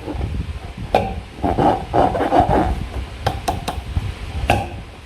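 Slime being squeezed and pulled by hand. Sticky clicks and wet squishing come in short irregular bursts: a click about a second in, a run of squishing around two seconds, then several quick clicks.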